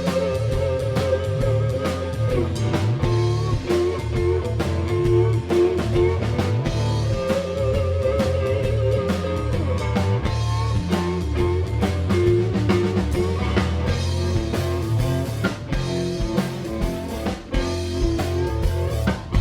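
Instrumental passage of a rock band playing live: guitar with held notes over a steady drum-kit beat, no vocals.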